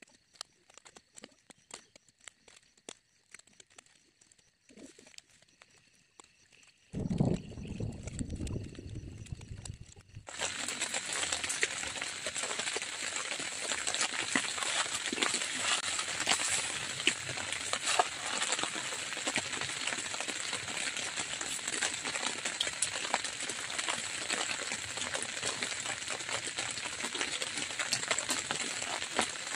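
Rain pattering densely on a tent, thick with tiny drop ticks, starting abruptly about a third of the way in. Before it, a few seconds of faint scattered ticks and a brief low rumble.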